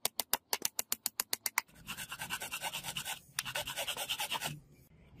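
A small hammer taps a metal retaining pin into a katana handle in quick sharp taps, about eight a second. Then a file rasps along the handle in rapid strokes, in two runs with a brief pause between them, stopping shortly before the end.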